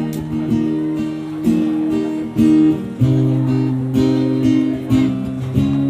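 Acoustic guitar strumming chords in a steady rhythm, with a chord change to a lower bass about halfway through.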